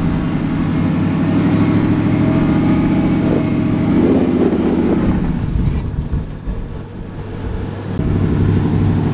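Supercharged 5.2-litre Predator V8 of a Ford F-150 Raptor R running under load, its revs climbing slowly over the first few seconds. It then eases off and quietens for about two seconds before picking up again near the end.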